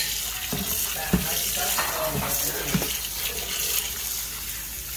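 Kitchen tap running onto seaweed in a plastic colander in a stainless steel sink while hands rub and squeeze the strands, rinsing off their slime. A steady splashing hiss, with a few sharper knocks from the handling, the loudest about a second in.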